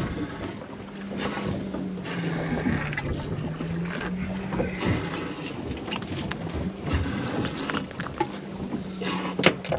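Wind buffeting the microphone aboard a fishing boat, over a steady low hum, with scattered knocks and one sharp knock near the end.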